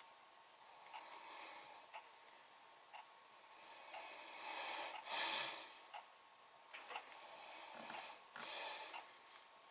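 Faint, sharp clicks of tweezers closing on beard hairs as they are plucked, about once a second, with breathy nasal breaths swelling between them. The loudest breath comes about five seconds in.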